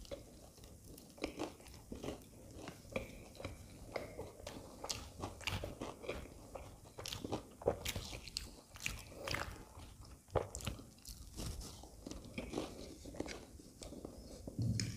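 Close-miked crunching and chewing of a fried aloo matar samosa, with irregular crisp crackles from the pastry crust. A slightly louder, duller mouth sound comes just before the end.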